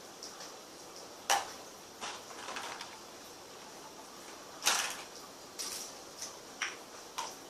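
Objects being handled on a table: a handful of short, sharp clicks and knocks, the loudest about two-thirds of the way in, with a brief rustle between them.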